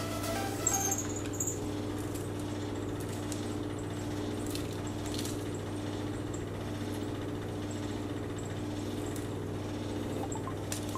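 Steady low hum of a kitchen appliance with a few faint light ticks. The ticks are nigella and poppy seeds being sprinkled onto kulcha dough on parchment, a couple of times in the first half.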